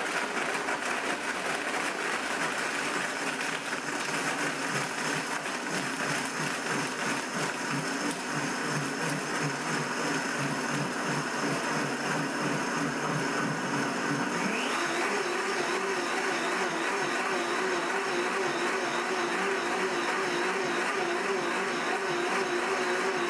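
Blendtec Total Blender's 3 hp direct-drive motor running its ice-crush cycle, the blade grinding ice cubes into slush. About fifteen seconds in, the motor speeds up with a rising whine and then runs steadily at the higher pitch.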